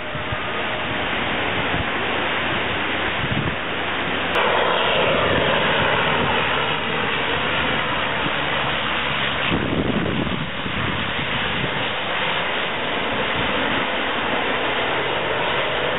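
Engines of a low-flying Canadair amphibious water bomber, a steady drone that grows louder about four seconds in as it passes close, its pitch falling as it goes by and then carrying on.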